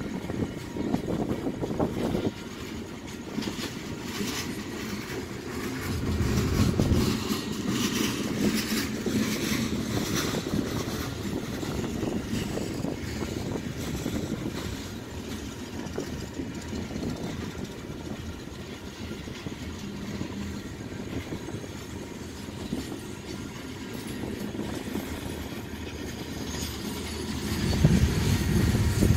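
Coal cars of a freight train rolling past: a steady low rumble of steel wheels on the rails, swelling louder about six seconds in and again near the end.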